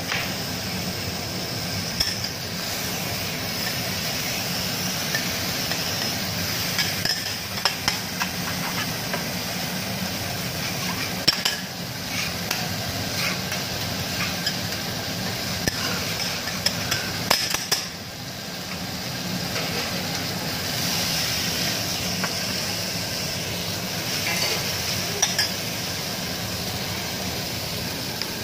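Meat and seafood sizzling on a flat steel teppanyaki griddle, a steady hiss, with metal spatulas scraping and clicking against the hot plate every few seconds.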